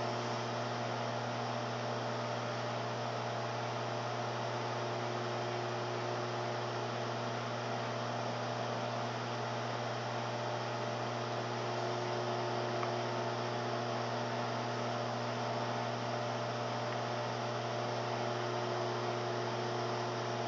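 LG 1200-watt microwave oven running, a steady, unchanging hum.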